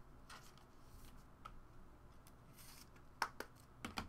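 A few faint clicks and light taps, with two sharper ticks a little after three seconds in and another pair just before the end.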